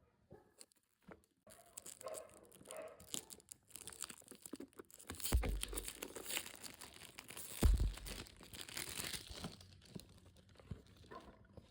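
Perfume packaging being torn open and crinkled by hand: a dense run of small crackles and rustles, with two dull thumps about five and eight seconds in.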